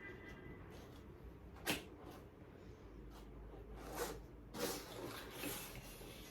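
Cardboard packaging of a YouTube Silver Play Button being handled and opened: a sharp knock about two seconds in, then a few scattered clicks and scraping, rustling sounds of the box.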